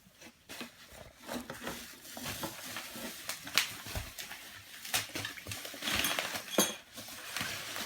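Cardboard and plastic packaging rustling and crinkling, with irregular small clicks and knocks, as the hoop is pulled out of its box.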